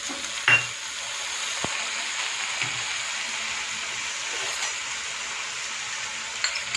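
Sliced vegetables sizzling steadily in a hot non-stick frying pan just after soy sauce has been poured over them, with a sharp clink about half a second in.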